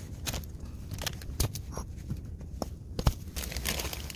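Scattered sharp clicks and knocks with rustling as stones and concrete blocks are moved by hand, the sharpest knock about three seconds in.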